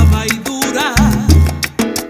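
Salsa music: a syncopated bass line under sharp, fast percussion hits, with a wavering melody line about a second in.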